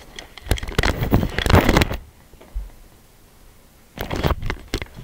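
Gaming headset being pulled off and handled close to the microphone: a couple of seconds of loud rubbing, rustling and clicking knocks. The room goes quiet, then a second short burst of knocks and rustling comes about four seconds in.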